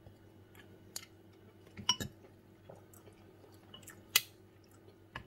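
Spoon and fork clinking a few times against a ceramic tureen, the loudest click about four seconds in, with soft chewing between.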